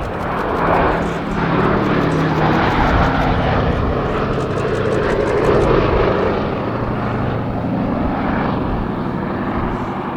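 Boeing B-17G Flying Fortress's four Wright R-1820 Cyclone radial engines running as the bomber flies past, a steady multi-engine drone that swells and is loudest a little past the middle.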